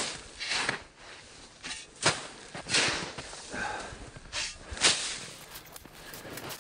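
Snow shovel scooping and tossing snow, a string of irregular scraping swishes, banking snow onto a canvas tent's skirt.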